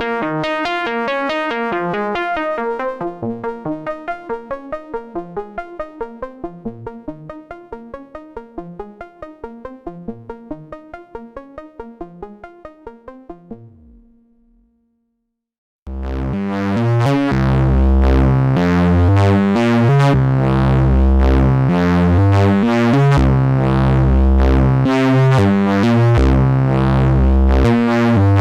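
Behringer 2600 analog synthesizer playing a fast sequenced pattern of short pitched notes that fades out about halfway through. After a brief silence, a new, louder sequenced pattern with a heavy bass starts.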